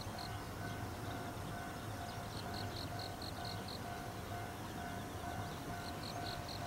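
Distant railway level-crossing warning bell ringing in an even, repeating on-off tone as a train approaches. Insects chirp over it in short runs of rapid high pulses, about one run every three to four seconds.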